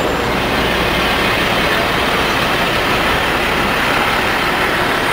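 Steady traffic and street noise of a busy city intersection, an even din with no single vehicle standing out.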